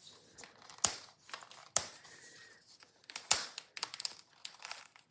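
Plastic crinkling and crackling as a Mini Brands blind ball is unwrapped by hand, with three sharp plastic clicks about a second apart to a second and a half apart.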